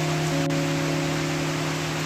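Background music of long held low notes over the steady hiss of heavy rain falling on standing water. A new note joins the chord about a third of a second in.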